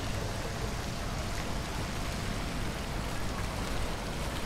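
Steady rain falling, an even, continuous hiss.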